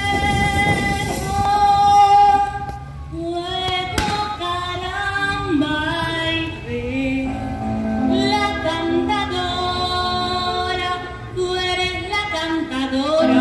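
A woman singing into a microphone with musical accompaniment, in sung phrases that rise and fall. A single sharp knock about four seconds in.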